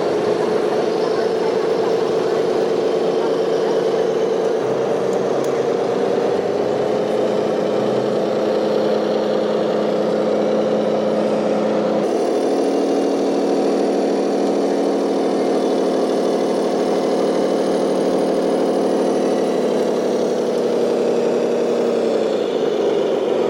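Small electric motor of a DIY remote-control model vehicle whining steadily, its pitch stepping a little a few times and sliding down near the end as it slows.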